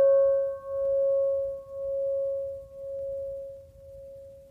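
A struck bell tone ringing out after a single strike, with a slow wobble about once a second, fading away near the end.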